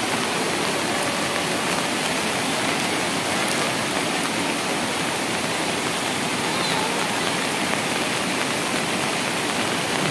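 Floodwater rushing steadily after a very heavy downpour, an even noise without a break: runoff overflowing into the streets and yards.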